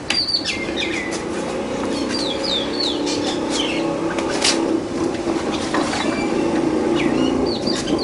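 Small birds chirping: short, quickly falling chirps repeated in little runs, over a steady low hum of background noise.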